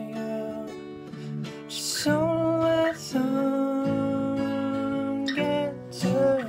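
Martin acoustic guitar strummed in slow chords that are left to ring, with fresh strums about two and three seconds in and again near the end.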